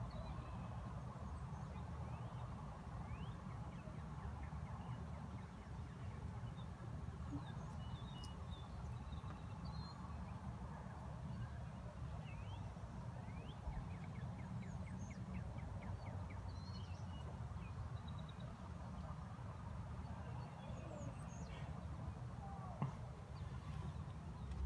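Faint outdoor ambience: a steady low rumble with scattered short bird chirps and whistles.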